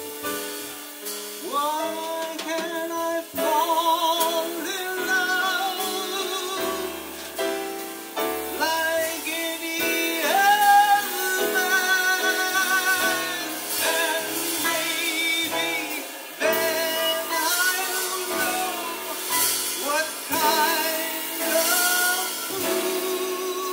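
Male vocalist singing a slow ballad line, holding long notes with a wide vibrato, accompanied by piano and upright bass.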